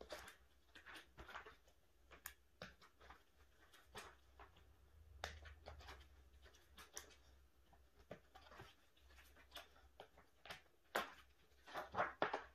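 Faint rustling and light clicks of plastic binder sleeves and photocards being handled, with a sleeve page flipped near the end, where it is louder.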